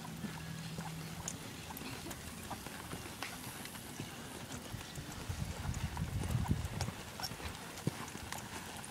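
Hoofbeats of a two-year-old colt loping on soft arena dirt, a run of dull thuds. A low rumble swells between about five and seven seconds in.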